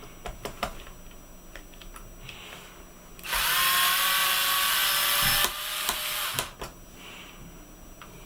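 Small electric screwdriver running for about two seconds as it backs out a laptop keyboard screw, with light clicks of the bit and handling before and after.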